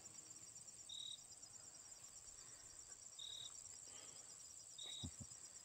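Faint, steady chorus of crickets trilling, with three short high notes about a second in, just past three seconds and near five seconds.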